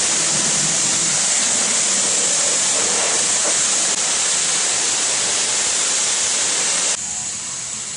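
Self-serve car wash high-pressure spray wand blasting water onto a car, a steady loud hiss that drops away suddenly about seven seconds in.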